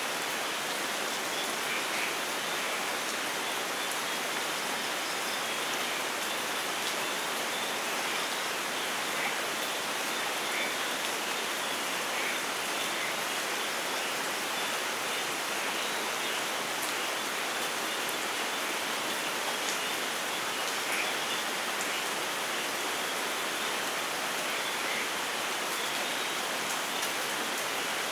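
Steady rainfall in a rainforest: an even, unbroken hiss of rain with faint scattered higher patters and no thunder.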